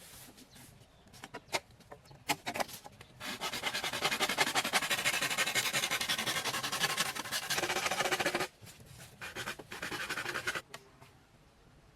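Wood being worked by hand: a steady rasping scrape for about five seconds, with scattered clicks and knocks before and after it.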